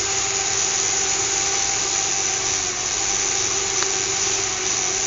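Small fischertechnik electric motor running steadily with an even whine and hiss, without change in speed.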